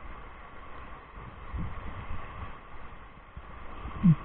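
Rushing whitewater and wind buffeting the camera microphone as a raft runs a rapid, with a few low thuds of water and paddles against the raft. About four seconds in comes a brief, loud, low sound that drops in pitch.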